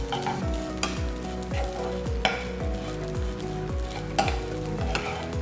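A spatula stirring and scraping cooked jeera rice in a frying pan, with a few sharper scrapes against the pan. Background music with a steady thumping beat plays underneath.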